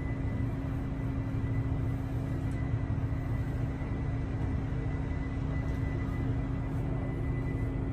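Steady low drone of a cruise ship's engines and machinery, with a constant hum and a faint high whine over it.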